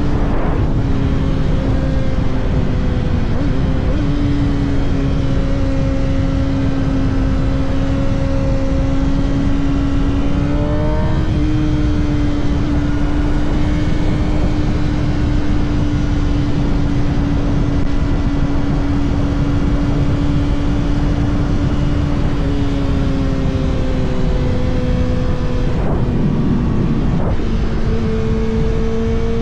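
Kawasaki ZX-6R's 636 cc inline-four engine running at a steady cruise under heavy wind noise. There is a short rise in revs about eleven seconds in, and the pitch drops near the end.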